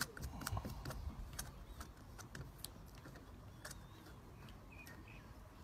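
Light, irregular clicks and taps of a line spool being seated on a lasso-tying tool and its thumb wheel done up. The clicks thin out in the second half.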